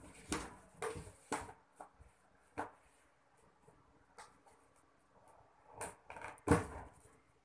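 Inflated latex balloons handled and twisted together by hand: short, irregular rubbing noises from the rubber, the loudest about six and a half seconds in.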